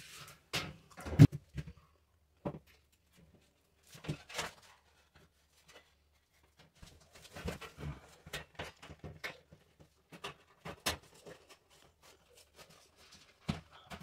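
Scattered knocks, clicks and light rattles of corner shower enclosure panels being pressed and worked by hand into their frame, with a sharp knock about a second in and a busier run of knocks about halfway through.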